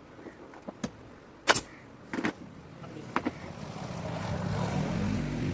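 A few sharp knocks, the loudest about one and a half seconds in, then a low engine-like drone that comes in about halfway and grows louder toward the end.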